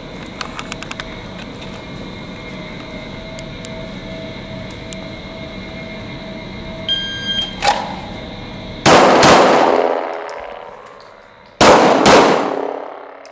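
A short electronic start beep, then two Glock 17 9mm pistol shots in quick succession, a gap of about two and a half seconds, and two more quick shots. Each shot rings on in a long echo off the indoor range's walls.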